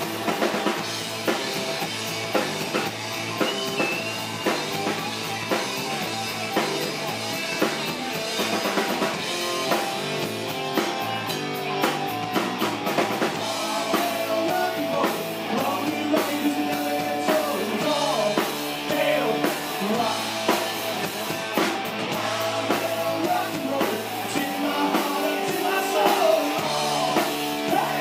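Live rock band playing: electric guitar and drum kit, with singing over it for much of the second half.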